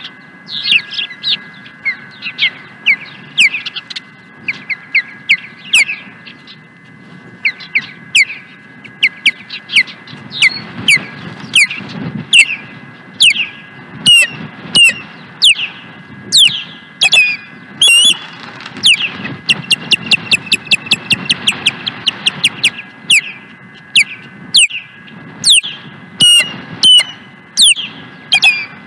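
Ospreys at the nest giving loud, sharp, downward-slurred whistled chirps in irregular series. Around the middle the chirps crowd into a rapid run of about five a second.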